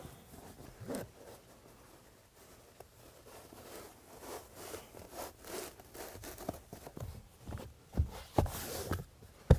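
Fabric seat covers rustling and scraping as they are handled on a rear bench seat. Near the end come a few sharper knocks as a headrest is pushed back down into the seat back.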